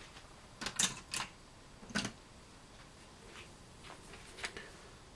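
Swiss Army knives being handled: a handful of short, sharp clicks and light taps, about seven in five seconds, the loudest about two seconds in.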